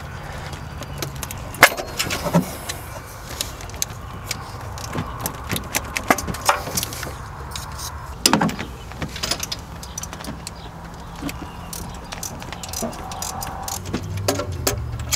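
Scattered clicks, knocks and rattles of old spark plug wire boots and lower heat shields being handled and pulled off a 6.0L Chevy V8, with a sharp knock about a second and a half in.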